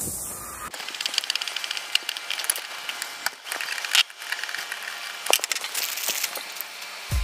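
Small metal clicks and scrapes of a screwdriver working the screws of a broken plastic fairlead ring on a stainless stanchion base, a run of quick irregular ticks. Near the end, a plastic bag crinkling.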